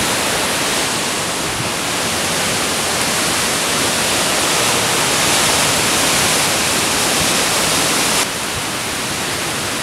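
Steady rushing noise of a thunderstorm's strong wind tossing tree foliage, with rain. The level drops a step about eight seconds in.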